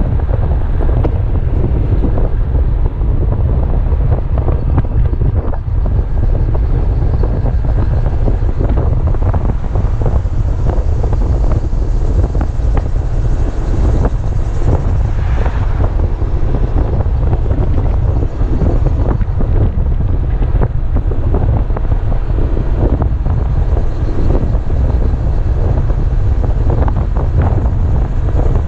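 Steady, heavy wind rumble on the helmet camera's microphone while riding, with the Kymco Xciting 250i scooter's single-cylinder engine running underneath.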